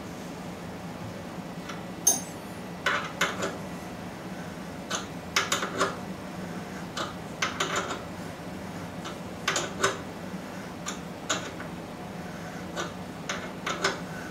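Morse taper 2 reamer being turned by hand with a wrench in a spindle bore, taking a very light pass. Irregular light metallic clicks and clinks come in small clusters every second or two, over a steady low hum.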